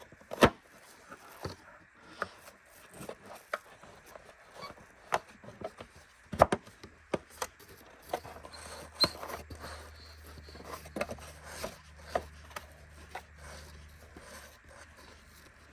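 Irregular clicks, knocks and scrapes of the plastic base, brush roll and drive belt of a Bissell Powerforce vacuum being handled and fitted together by hand. The loudest knocks come at the start and about six seconds in.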